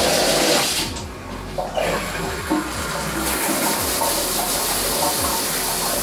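GURIN rain shower head turned on with its 1.8 GPM flow restrictor in, water spraying down into the shower. The rush of water dips briefly about a second in, then builds into a steady hissing spray from about three seconds in.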